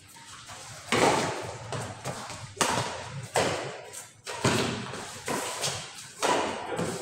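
Badminton rackets striking a shuttlecock in a doubles rally, about six sharp hits roughly a second apart, each ringing on briefly in the hall.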